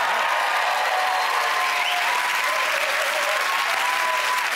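Studio audience applauding steadily, a dense, even clapping.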